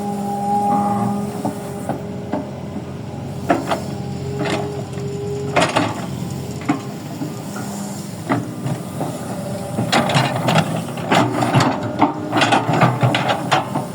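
Toy excavator's small electric motor whining steadily while its bucket scrapes and clatters in soil, with sharp clicks and knocks that come thicker near the end.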